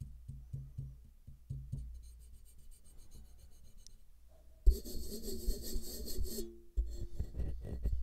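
Handling noise picked up by a Polsen RM-650 large-diaphragm condenser microphone as fingers tap and rub its shock mount. It opens with a run of light taps, about four a second, for the first two seconds. Just past halfway comes a louder scraping rub lasting under two seconds, then a few more knocks near the end.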